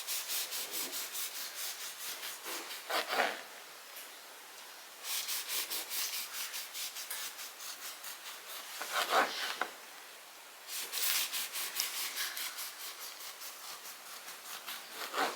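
Knife sawing back and forth through a loaf of homemade bread, quick rasping strokes at about three or four a second, in three runs with short pauses between slices.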